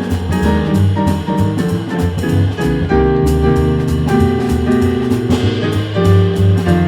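Jazz piano trio playing a standard: piano chords and lines over walking double bass, with drum kit keeping time on the cymbals.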